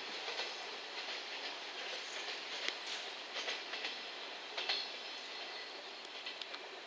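Container freight train wagons rolling away along the track, their wheels making scattered clicks and clanks over the rails, fading slowly as the train recedes.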